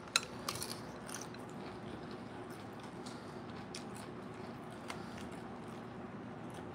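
Eating sounds: a sharp click just after the start and a few more clicks in the next second, then faint scattered ticks of chewing and a metal spoon scooping in a glass bowl of aguachile.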